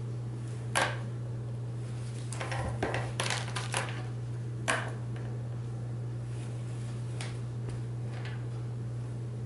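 Scattered light clicks and clatters over a steady low hum: one sharp click about a second in, a short run of small rattling clicks around the middle, and another sharp click near five seconds, then a few faint ticks.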